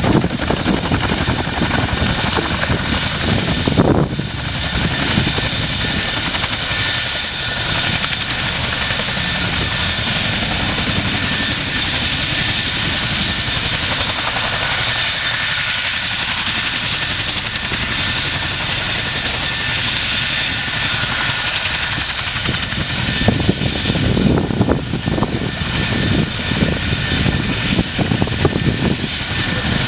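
RAF Chinook tandem-rotor helicopter running close by: a steady rotor beat under a constant high turbine whine from its twin turboshaft engines. The low rotor beat strengthens near the end.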